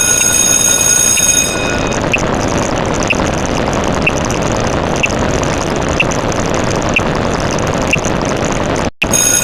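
Steady rumbling vehicle noise with a high whistling squeal that stops about a second and a half in, and a short high beep about once a second.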